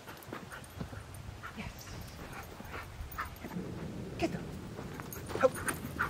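A dog whimpering and giving short yips, mixed with scuffing footsteps on dry dirt; the sharpest yip comes about five seconds in.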